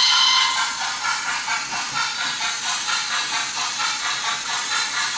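Sound decoder (Zimo MX644D with Mr Soundguy sound) in a Bachmann OO gauge model of a Southern H2 Atlantic 4-4-2 steam locomotive. A steam whistle ends about half a second in, then steady chuffing follows at about four beats a second. It plays through the model's small 23 mm speaker, so it is thin, with little bass.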